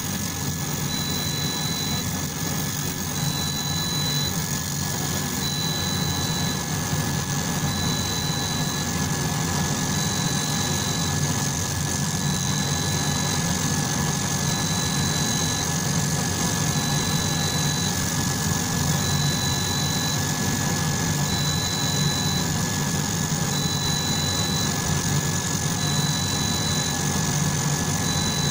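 Fiber laser marking machine deep-engraving aluminum, running steadily: an even hum and hiss, with a faint high tone pulsing on and off in a regular rhythm.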